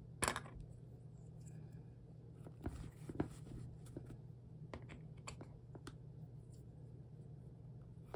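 Faint handling noise of a stiff vinyl bag being folded and pinched at a bulky seam: light rustling with scattered small clicks and taps, the sharpest about a third of a second in. A steady low hum runs underneath.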